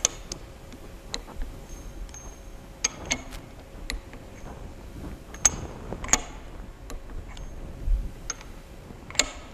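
Torque wrench tightening the tool nuts on a waterjet intensifier's high-pressure end cap to 20 foot-pounds: a dozen or so sharp metallic clicks and clinks at irregular intervals as each nut is brought up to torque.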